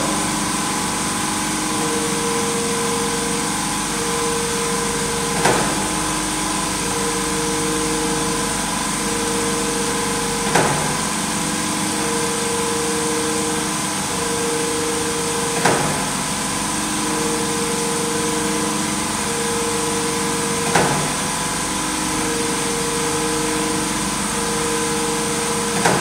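Microwave oven door endurance tester cycling the oven door: its drive hums at two alternating pitches as it swings the door open and back, and the door shuts with a sharp knock about every five seconds, five times. This is a rate of about 12 cycles a minute, over steady mechanical background noise.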